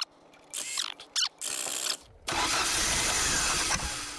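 A few short clicks and rattles, then a cold carbureted car engine cranks and fires for about a second and a half before dying away. This is a frozen engine being coaxed to start, with a starter motor that is acting up.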